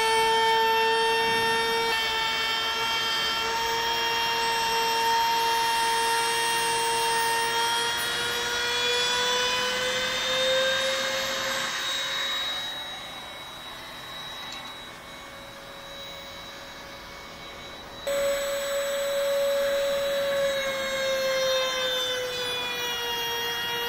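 Compact router with a flush-trim bit running at high speed, a steady high whine, trimming plywood sheeting flush with the frame. The pitch creeps up and the sound drops for several seconds in the middle, then comes back louder and the pitch sags again near the end.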